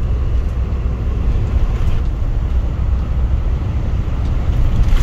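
Steady low road and engine rumble inside a camper van's cab, cruising at about 80 km/h on cruise control.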